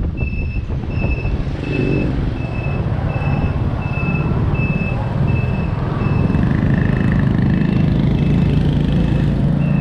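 Motor scooter riding through city traffic: a low engine hum with wind and road noise that grows louder about six seconds in. Over it, a steady high beep repeats about twice a second.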